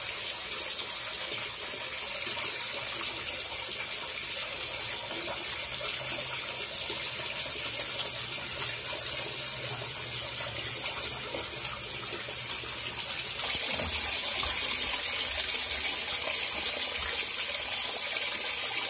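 Water running steadily from a tap onto a wet stone floor. About thirteen seconds in, the flow grows louder and hissier.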